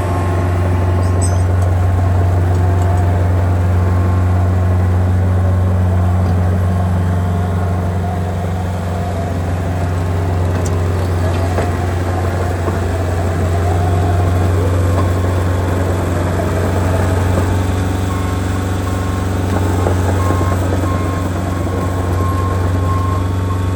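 LeeBoy 8515 asphalt paver's diesel engine running steadily at a constant speed, with a deep, even hum.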